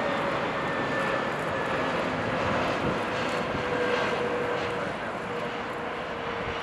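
Airbus A320neo's Pratt & Whitney PW1100G geared turbofans on final approach: a steady jet rush with a whining tone that slowly falls in pitch as the airliner passes.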